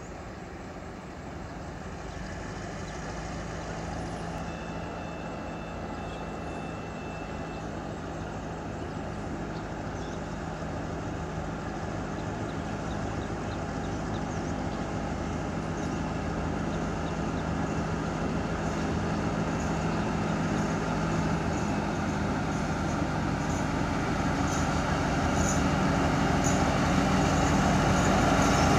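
Alsthom ALS-class diesel-electric locomotive with a Caterpillar engine running as it hauls a train of tank wagons closer, its steady engine hum growing louder.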